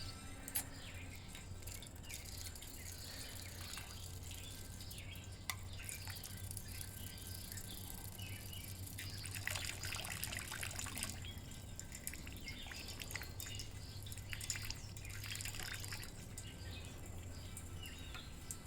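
Water dripping and trickling, with bird chirps clustering about nine to eleven seconds in and again near fourteen to sixteen seconds, over a steady low hum. Two short, sharp sounds stand out, one about half a second in and one about five and a half seconds in.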